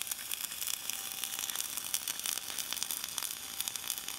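Gas-shielded, wire-fed welding arc of a CRC-Evans M-300C automatic pipe welding bug, crackling and sizzling steadily as it welds along the pipe bevel.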